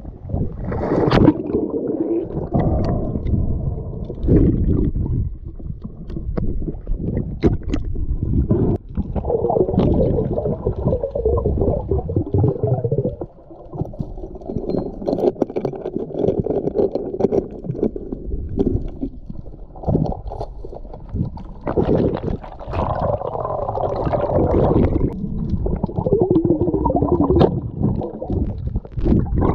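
Muffled underwater sound picked up by a diver's camera: gurgling, rumbling water noise with scattered clicks, wavering unevenly.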